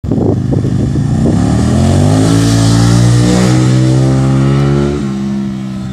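Aprilia Tuono 1000R's V-twin engine accelerating hard as the motorcycle comes up the road, its pitch rising and then holding high. About five seconds in the pitch and loudness drop suddenly as it passes by.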